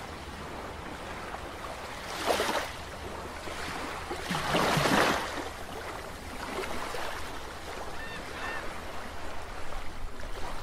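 Underwater sound effects for a logo animation: a steady watery rush with two whooshing swells, a short one about two seconds in and a longer, louder one around five seconds.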